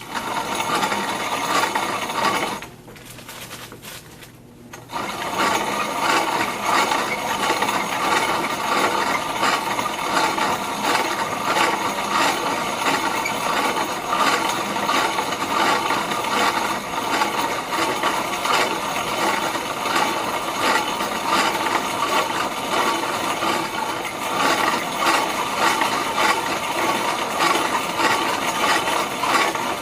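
Corona-style grain mill crushing malted barley between its grinding plates, a steady dense crunching and rasping with many fine cracks. It stops for about two seconds roughly three seconds in, then runs on unbroken.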